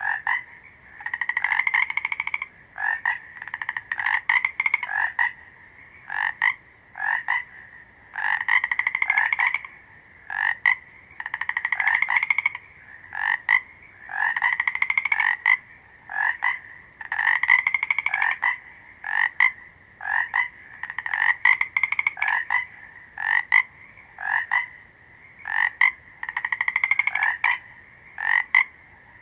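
Frogs croaking: short single croaks between longer pulsed calls of about a second and a half, the longer calls coming back every three to four seconds.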